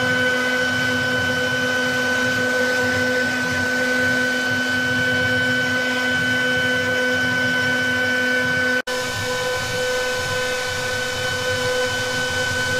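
CNC wood-carving router running, its spindle giving a steady high whine over machining noise. The sound drops out for an instant about nine seconds in, then carries on unchanged.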